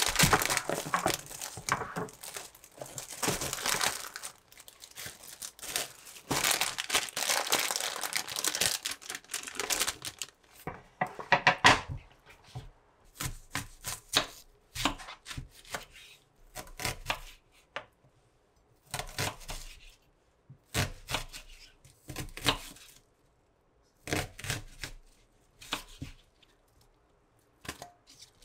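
Clear plastic grocery bags crinkling and rustling as they are handled and opened. From about halfway, a knife cuts through an onion on a wooden cutting board in short, separate strokes.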